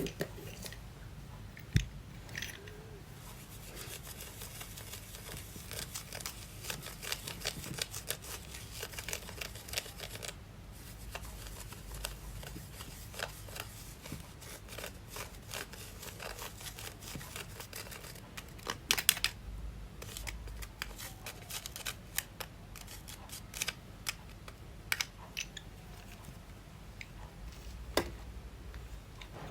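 Slime being squeezed and worked by hand, giving runs of small sticky clicks and crackles, with a few louder snaps.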